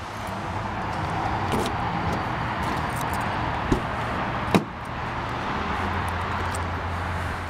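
Driver's door of a 1994 Cadillac Fleetwood Brougham being opened: a small click and then a sharper latch snap a little past halfway as the handle is pulled, over steady outdoor background noise.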